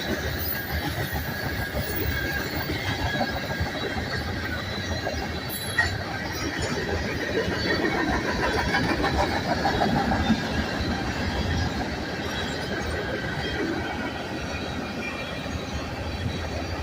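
Freight train cars rolling past: a steady rumble of steel wheels on rail, with faint high wheel squeal held throughout and a single sharp click about six seconds in.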